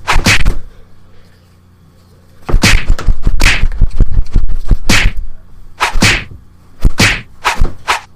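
Fight-scene punch sound effects: hits at the start, then after a pause of about two seconds a quick, irregular run of about a dozen more punches.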